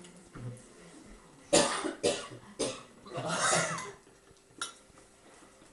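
Two men laughing: three short, sharp bursts about half a second apart, then a longer laugh.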